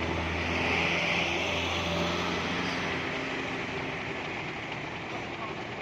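A heavy truck's diesel engine going past, a low steady hum with a hiss over it, loudest in the first two seconds; the engine hum fades out about three seconds in.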